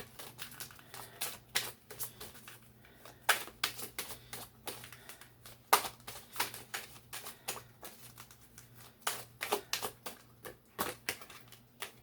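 A deck of cards being shuffled by hand: a long run of irregular, crisp clicks and taps as the cards slap against each other.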